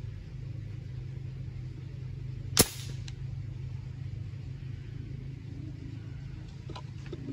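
A single sharp shot from a homemade gun firing an 8mm steel ball about two and a half seconds in, followed by a faint click, over a steady low hum.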